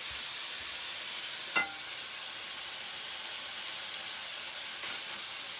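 Salmon frying in a skillet, a steady sizzle. One short sharp clink about one and a half seconds in.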